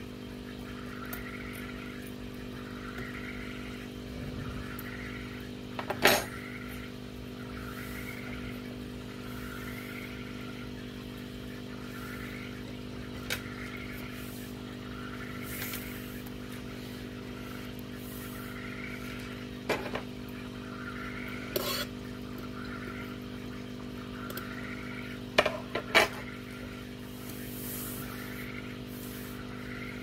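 Several sharp clicks of metal aquascaping tweezers tapping the glass and the granular aquarium soil, the loudest near 6 s and a pair near 26 s. Underneath is a steady machine hum with a faint pattern repeating about once a second.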